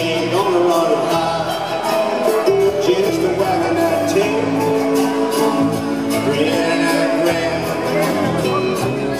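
Live band playing a song on acoustic guitars, keyboards and drums.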